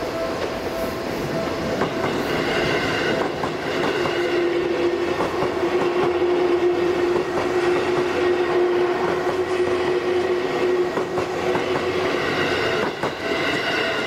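Seibu Railway electric commuter train passing over a level crossing, its wheels clattering on the rails with a steady hum from about four seconds in to about twelve. The crossing alarm rings at the start and again near the end, drowned by the train in between.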